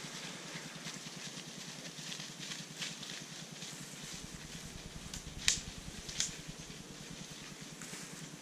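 Rustling and crackling of dense weeds and brush as a tracking dog and people move through it, with two sharp snaps about five and a half and six seconds in.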